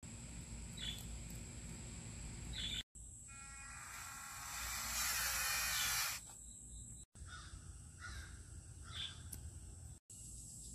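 Outdoor ambience with a low steady rumble and several short bird calls, and a louder dense chirring about four to six seconds in. The sound drops out for an instant three times.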